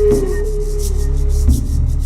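Ambient performance music: a held, slightly wavering tone fades out and sags in pitch. Rhythmic scraping or rubbing strokes over a low hum take over, with a soft knock about one and a half seconds in.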